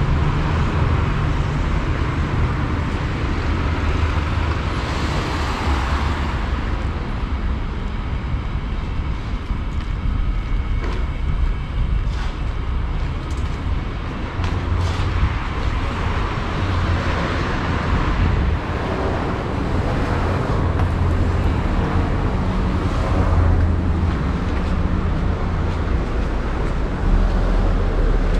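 Urban street traffic: a steady low rumble with cars swelling past a few times.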